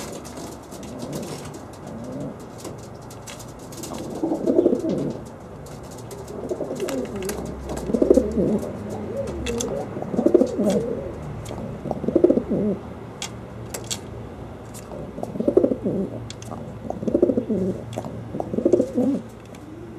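Homing pigeon cooing: about eight low, throaty coo phrases, one every second or two, starting about four seconds in.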